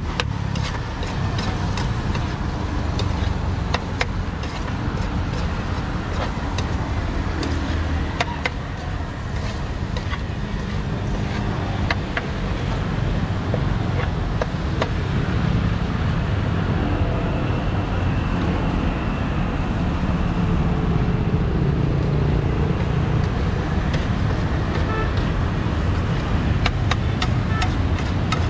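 Steady street-traffic rumble, with scattered sharp metallic clicks from a metal utensil striking a wok as corn kernels are stir-fried.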